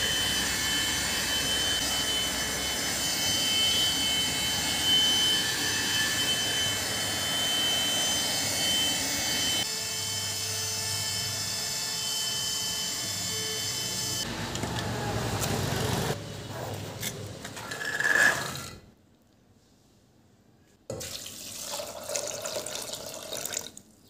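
A cordless handheld car vacuum (AGARO) runs steadily with a rushing suction noise and a high motor whine as it cleans car seats. Its tone changes about ten seconds in, and the whine stops about fourteen seconds in. It is followed by shorter, uneven noises, a brief pause, and more noise near the end.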